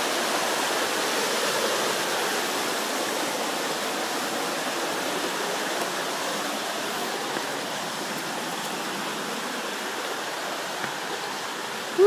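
A rocky river rushing over rock ledges: a steady hiss of running water that grows slightly fainter.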